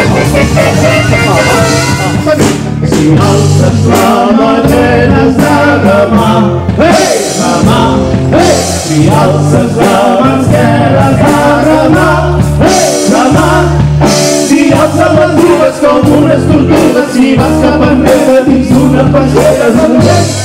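Upbeat song for children to dance to, with singing over a steady beat and bass.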